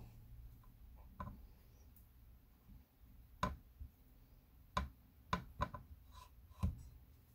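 Light handling sounds while making a peanut butter sandwich: about six scattered short taps and scrapes over a faint low hum.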